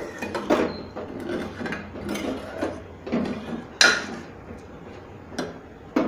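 Steel spoon scraping and knocking against a steel pan in irregular strokes, mashing lumps of coarsely ground rice paste into a little hot milk. There is a sharper knock about two-thirds of the way in.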